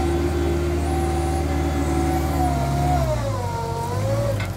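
TCM Tomfighter 808A mini wheel loader's engine running under load. It holds a steady pitch, then drops about three seconds in and wavers down and back up.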